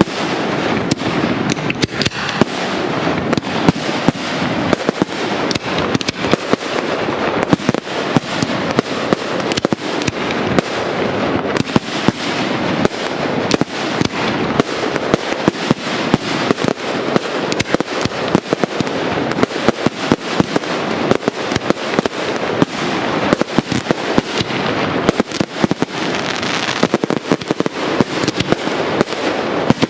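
Fireworks display: aerial shells bursting in a dense, unbroken barrage, several bangs a second.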